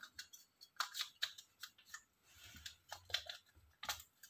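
Irregular small clicks and scrapes of the plastic barrel parts of a Canon EF 50mm f/1.4 lens, handled in gloved hands as the focusing-ring assembly is mated to its gear reducer.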